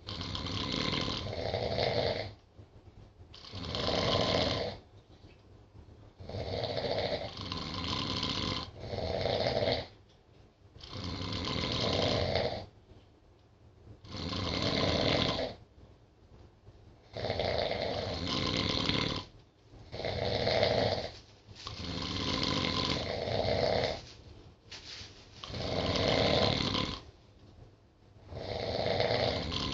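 Two sleeping people snoring, one rasping snore every one to two seconds on uneven timing, some in quick pairs, with short quiet gaps between breaths.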